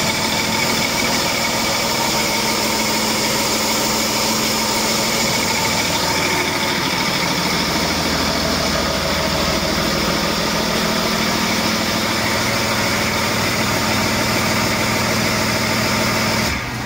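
Cummins ISB 6.7-litre inline-six turbodiesel idling steadily on an engine run stand.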